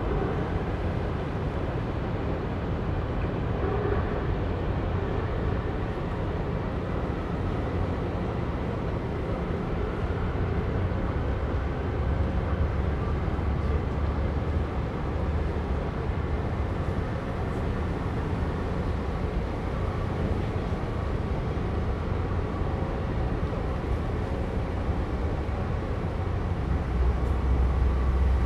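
Steady low rumble and drone of a large container ship under way, passing close by. The low rumble grows louder near the end.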